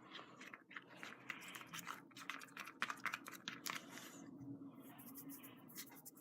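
Sticky, not yet set slime of glue, baking soda and contact lens solution being stirred and squished, giving a faint run of irregular small clicks and crackles.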